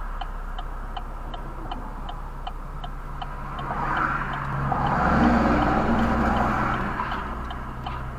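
Car engine idling while stopped, with a turn-signal indicator ticking about three times a second. A passing truck swells up about four seconds in and fades again near the end.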